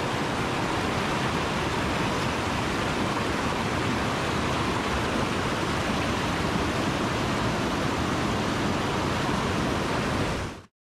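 Fast mountain stream rushing over rocks in whitewater rapids, a loud, steady rush of water that cuts off abruptly near the end.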